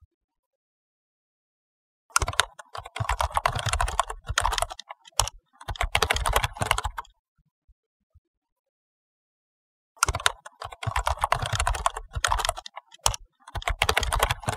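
Rapid keyboard typing, dense runs of clicks, starting about two seconds in, stopping for about three seconds midway, then resuming.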